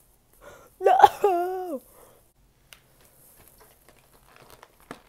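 A young woman's mock crying: one drawn-out wailing whimper about a second in, falling in pitch. After it come faint rustling and light taps as a cardboard advent calendar box is handled.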